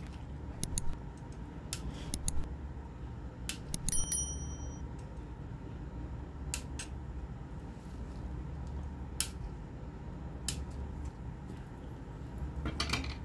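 Flush cutters snipping the excess component leads off a soldered circuit board: a series of separate sharp snips, a few close together near the end. There is a brief bell-like ring about four seconds in, over a steady low hum.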